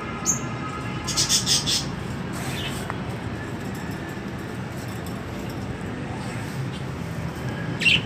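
Caged parakeets calling: a short high chirp, then a quick run of sharp squawks about a second in, with another call near the end. A steady low hum runs underneath.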